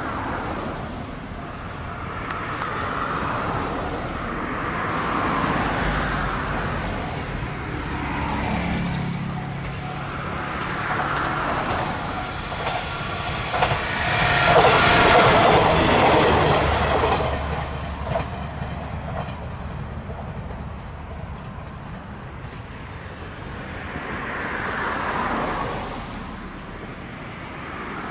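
JR Kyushu KiHa 66/67 two-car diesel railcar passing. The engine note builds as it approaches, it is loudest about halfway through with wheels clattering over the rail joints, then it fades as it moves away.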